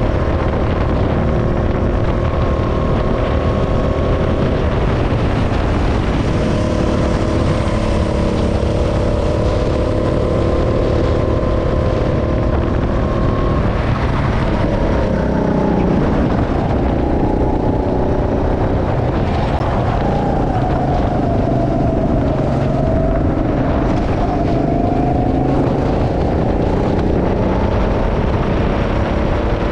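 Go-kart engine running under throttle, heard from the driver's seat. Its note holds steady for the first dozen seconds, drops about fifteen seconds in as the kart slows for a corner, then climbs and wavers as it accelerates again.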